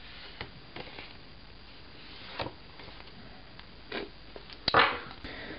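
Stiff postcards being handled and shuffled: a few soft scattered rustles and taps of card against card, then a louder brushing slide near the end.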